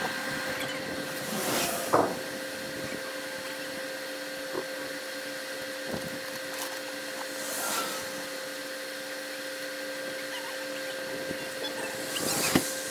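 Steady mechanical hum with a constant hiss, broken by a few brief swells of rushing noise.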